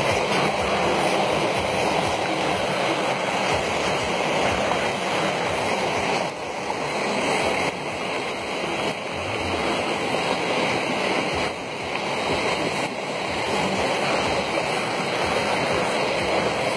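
Muddy floodwater rushing across a road, a steady wash of water noise that dips briefly twice.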